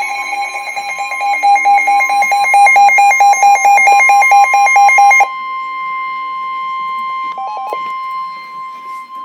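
Emergency alert warning tones. For about five seconds a rapid pulsing electronic alarm beep sounds over a steady single tone, then the beeping stops abruptly and the steady tone (the 1050 Hz weather-radio warning tone) carries on alone, with a couple of short beeps partway through, until it cuts off near the end.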